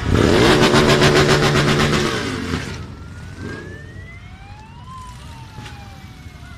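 A motorcycle trike's engine runs loud with fast, even pulsing as it passes close, then fades about two and a half seconds in. After that a siren wails faintly in one slow rise and fall.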